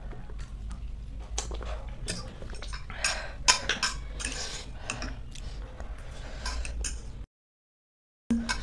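Metal forks clinking and scraping on plates as instant noodles are eaten, in short irregular clicks with a louder cluster about three seconds in. The sound drops out to total silence for about a second near the end.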